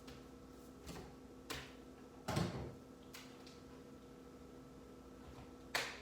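A few scattered knocks and clicks of things being handled, the loudest and deepest about two seconds in and another sharp one near the end, over a faint steady hum.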